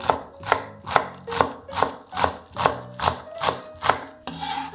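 Chef's knife chopping green onions on a wooden cutting board: about ten even knocks of the blade against the board, roughly two and a half a second. Near the end, a short rasping scrape.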